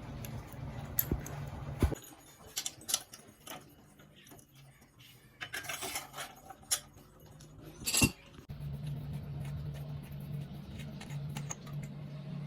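Metal hand tools and small metal parts clinking and rattling in scattered knocks, with the loudest clack about eight seconds in. A steady low hum runs under it, dropping out for about six seconds and then coming back.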